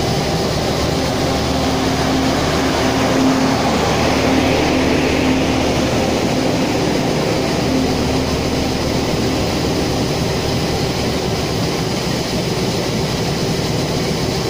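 Diesel-hauled passenger train moving slowly past: a steady rumble of the coaches and engine drone, with a steady low hum in it for the first ten seconds or so.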